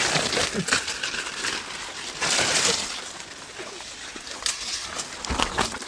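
Sugarcane leaves and undergrowth rustling and swishing as they brush past, with scattered sharp snaps and crackles of stems. The swishing is loudest at the start and again about two and a half seconds in.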